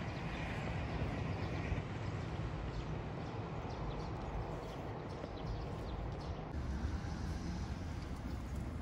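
Steady outdoor urban ambience: a low rumble of distant road traffic with a faint hiss, and no distinct events.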